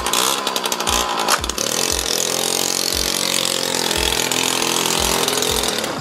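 Suzuki JR50's small two-stroke single-cylinder engine running as the bike pulls away under an adult rider, its pitch staying fairly level rather than climbing. The engine is bogging and has no pulling power, which the rider puts down to a carburetor that needs cleaning.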